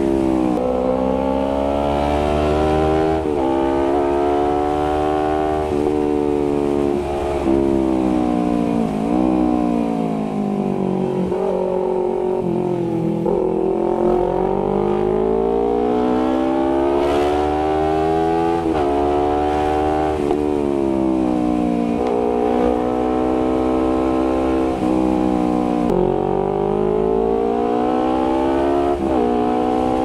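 Honda CBR250RR parallel-twin engine through an aftermarket R9 GP SS exhaust while riding. The engine note climbs under throttle and drops sharply at each upshift, again and again. About a third of the way in it eases off and slowly builds again.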